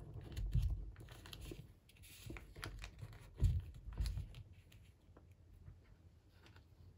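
Origami paper rustling and crinkling as the flaps of a folded paper menko are tucked in and pressed flat, with a few soft thumps of the hands on the table, the loudest about three and a half seconds in. The handling stops about five seconds in.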